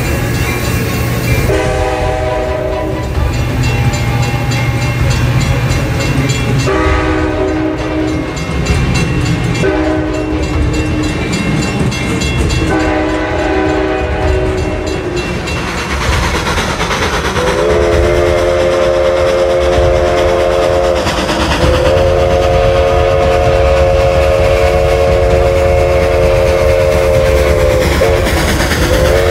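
Train air horn sounding a chord of several tones in a series of blasts, the last two long. Underneath is the continuous rumble and clickety-clack of a moving train.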